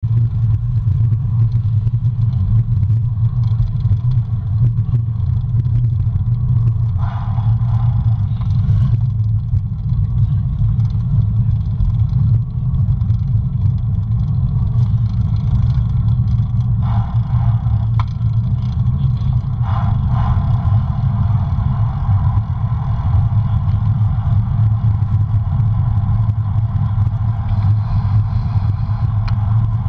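Wind buffeting the microphone of a camera mounted on a moving road bicycle: a loud, steady low rumble mixed with tyre noise on the road, with a few brief swells of higher noise.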